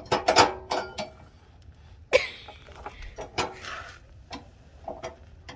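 Irregular clicks, clinks and knocks of a part being handled and fitted back onto a car's underbody by hand, with a short scrape about two seconds in.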